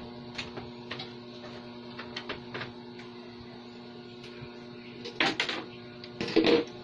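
A steady electrical hum with scattered light clicks, then two louder brief noisy bursts near the end.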